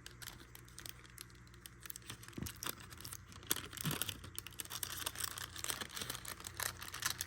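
Plastic wrapping being torn and crinkled off a deck of trading cards, a run of small crackles and clicks that grows busier about two and a half seconds in.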